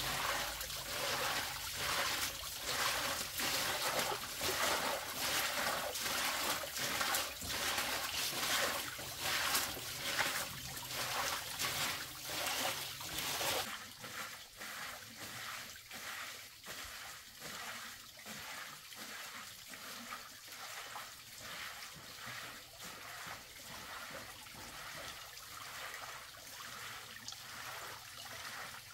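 Water splashing and trickling in a steady rhythm of about two strokes a second; the sound turns suddenly quieter a little before halfway through and goes on in the same rhythm.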